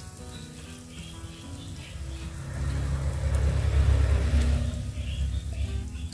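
Spice paste sizzling softly in oil in a frying pan, under soft background music. A low rumble swells from about two seconds in and fades near the end.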